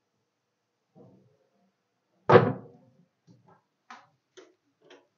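Liftable cabin table being pushed down into place: one loud thump a little over two seconds in, followed by four lighter knocks about half a second apart.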